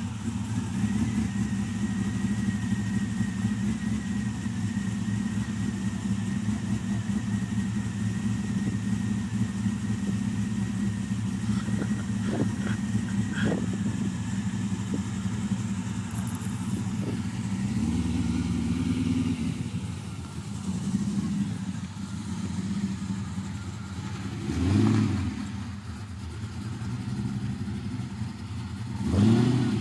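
Holden VZ Commodore's LS1 5.7-litre V8 idling steadily just after start-up, then moving off, with two short rises in revs in the last few seconds.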